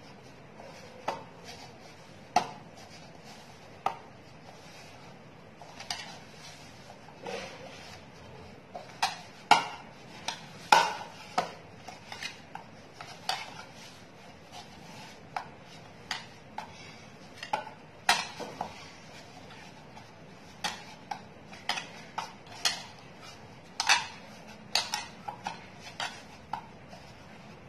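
Play dough kneaded by hand in a bowl: irregular sharp clinks and knocks of the bowl and hands against its rim, a few every couple of seconds, with a soft pressing and rubbing of dough in between.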